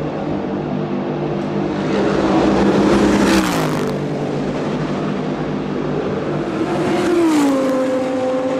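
Two GT race cars pass at speed about four seconds apart, each engine note dropping in pitch as it goes by; the first pass is the louder.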